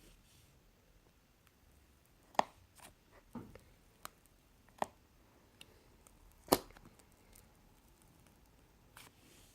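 Fluffy slime being pressed and worked by hand, giving a handful of sharp, scattered pops and clicks with quiet between them; the two loudest come about two and a half seconds in and past the middle.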